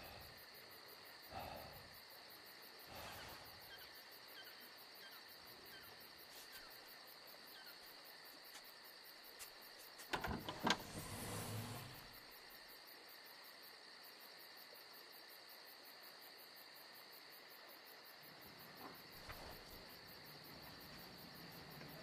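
Faint, quiet night-time room ambience with a steady high-pitched insect chirr like crickets. A few soft rustles of movement, and a brief louder burst of clicks and rustling about ten seconds in.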